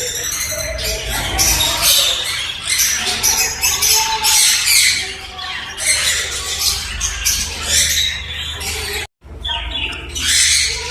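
Baby parrots squawking: many short calls in quick succession, broken by a brief drop-out to silence about nine seconds in.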